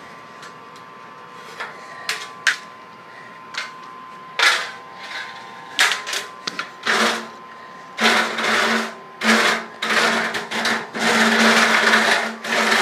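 Net on a pole knocking and scraping against an aluminium stepladder: scattered knocks at first, then from about seven seconds in, longer loud rasping and rattling bursts with a low buzz in them.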